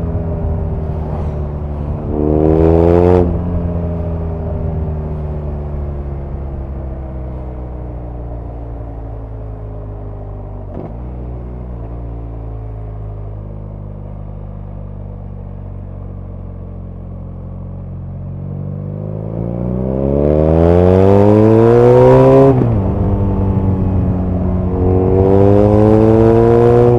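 BMW R nineT's air/oil-cooled boxer twin under way: a short rising burst of throttle about two seconds in, then a long stretch of slowly falling revs off the throttle. From about 19 seconds it pulls hard with the pitch climbing steadily, drops back for a gear change near 22 seconds, and climbs again near the end.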